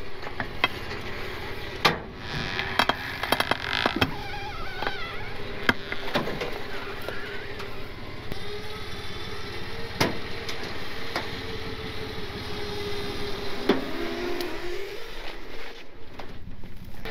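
Electric winch motor whining steadily under load as it drags a locked-up truck, tires not turning, up a flatbed trailer deck. Sharp metal knocks and clunks come every few seconds as the truck catches on things, and the winch's pitch wavers near the end.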